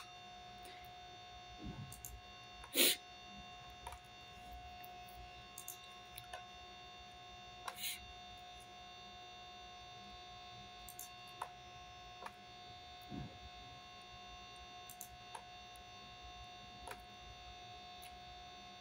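Faint steady electrical hum with a thin whine, over scattered faint clicks of a computer mouse and keyboard in use; one louder click about three seconds in.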